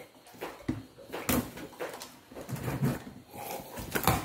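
Kitchen knife slicing through packing tape and scraping along a cardboard box, in several irregular strokes, with the cardboard flaps knocking and rustling.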